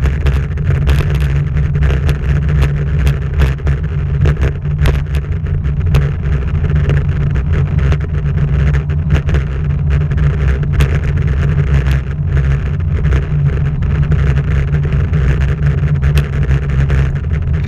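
Heavy, steady wind and road rumble on a camera mounted on a moving bike, with scattered sharp clicks and rattles from bumps in the road.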